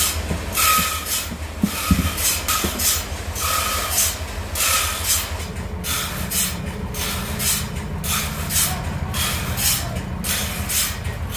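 Portable sawmill running and cutting wood: a steady engine drone under a hiss of the blade that swells and fades about once a second.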